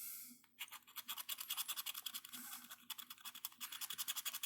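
Rapid back-and-forth scratching of the latex coating off a scratch-off lottery ticket, starting about half a second in.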